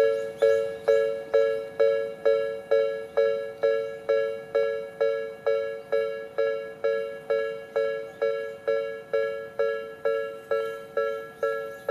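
Japanese railway level-crossing alarm: an electronic two-tone bell striking about three times a second, each strike dying away quickly. It signals that a train is approaching the crossing.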